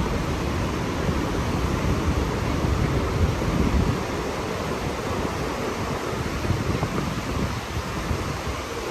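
Steady rushing roar of the Rhine Falls, a large waterfall, heard as a loud, even noise that is heaviest in the low end and swells a little about three seconds in.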